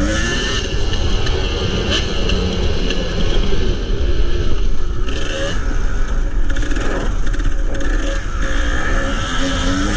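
Kawasaki KDX250 two-stroke single-cylinder dirt bike engine under way, its pitch climbing several times as the throttle is opened and dropping back between, over a heavy low rumble of wind on the microphone.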